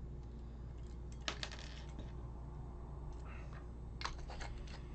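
Faint small clicks and light metallic taps, a cluster about a second in and another near the end, as spare needles are put away into the hollow wooden handle of an Awl for All stitching awl. A faint steady hum runs underneath.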